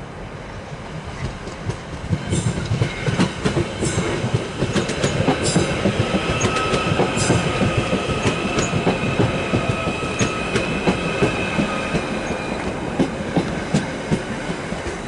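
Merseyrail Stadler Class 777 electric multiple unit running past at close range, its wheels clicking and clacking over rail joints and points. A steady high-pitched whine sounds through the middle of the pass.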